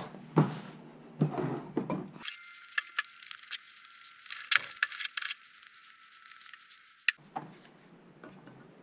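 Handling sounds on a workbench: paper-towel rustling and a scatter of light clicks and taps as a G10 fiberglass pad is wiped down.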